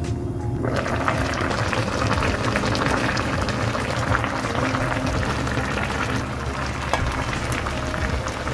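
Braised dried pollock and radish greens simmering in a pan, the thick sauce bubbling and popping steadily from about a second in. Background music plays underneath.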